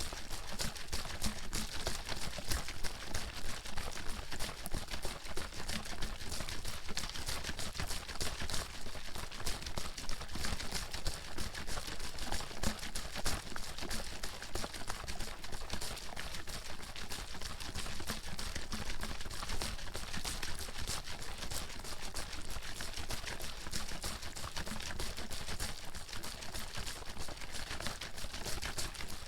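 Water bottle being shaken hard and continuously, the water sloshing and slapping inside in a fast, even rattle.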